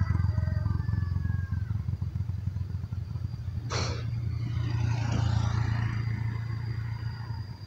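A road vehicle's engine running and slowly fading as it drives away. There is a short hiss about four seconds in.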